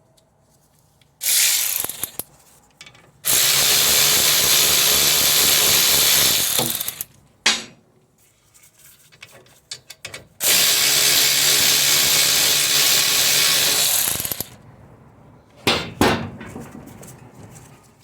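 A power tool runs in three bursts to back out the rear brake caliper bracket bolts: a short burst, then two long steady runs of several seconds each. A few sharp metallic clicks come near the end.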